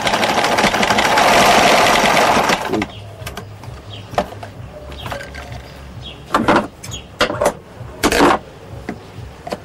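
Electric sewing machine running at speed, stitching fabric, stopping about three seconds in. After that come a few short, sharp clicks and knocks.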